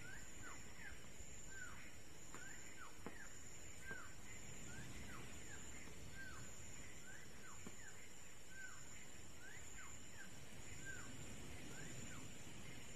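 Birds calling: short arching whistled chirps, repeated about two a second, over a faint steady high-pitched tone and quiet outdoor background.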